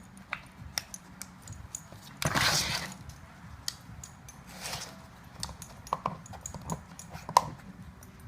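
A dog working a plastic treat-puzzle toy: scattered light clicks and knocks of the plastic pieces and its claws, with a loud sniff a little over two seconds in and a fainter one about halfway.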